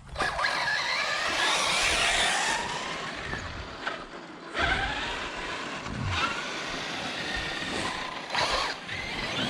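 Electric RC trucks running: the motors and gears whine, rising and falling in pitch with the throttle, over a steady hiss of the drivetrain and tyres on the ground.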